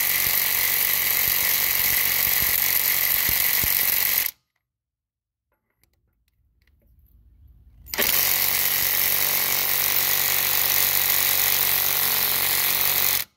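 Ryobi P235 brushed 18-volt impact driver hammering in reverse on a lug nut, in two runs of about four and five seconds with a short pause between. The nut does not come loose.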